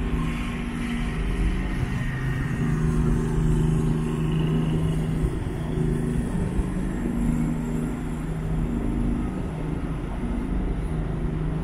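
The Ogasawara Maru ferry's engines running as it berths: a steady low drone with a deep rumble, its low tones shifting slightly in pitch.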